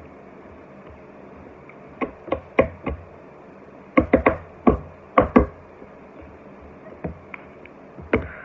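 Sharp knocks and taps from hands handling a stack of trading cards close to the microphone: a quick cluster of about four, then about six, then two single knocks near the end.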